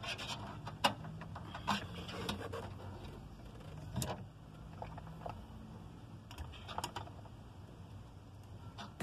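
Light scattered clicks and rustling as the loose wires and spade connectors of a VW Beetle's wiring harness are handled, with a faint low hum underneath.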